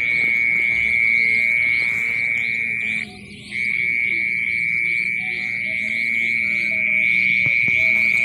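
An insect trilling close by: one steady, high-pitched buzz that stops for about half a second around three seconds in, with quicker repeated chirps from other insects above it.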